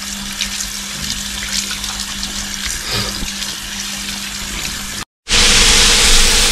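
Kitchen tap running into a sink during washing-up, with a few light clicks. About five seconds in it cuts off abruptly, and after a moment's gap food sizzles loudly as it fries in a pan.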